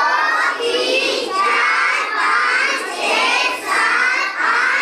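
A group of young children chanting a classroom rhyme together in loud, high voices, in short phrases about a second apart.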